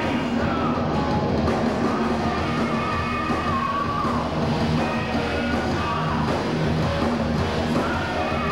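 Heavy metal band playing live: distorted electric guitars, bass and drums in a dense, steady wall of sound, with long held high notes sustained over the top.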